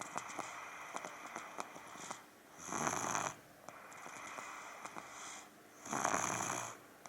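A two-year-old child snoring, with loud, rough snores about every three seconds and quieter breathing between them. The snores have a rattling, motorcycle-like sound.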